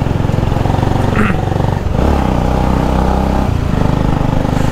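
Motorcycle engine running steadily while riding, its pitch shifting about two seconds in, with a brief high tone about a second in.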